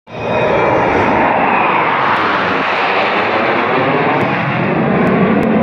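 Jet engines of a formation of KAI T-50B jet trainers flying over trailing display smoke: a loud, steady roar that begins abruptly.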